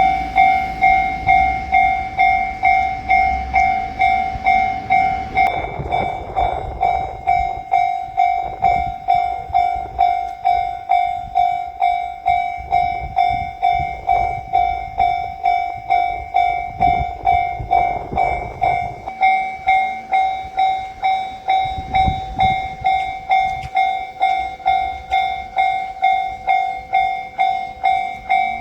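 Japanese level-crossing warning bell ringing its kan-kan, an even string of bright metallic strikes just under two a second. Low rumbles swell and fade underneath it a few times.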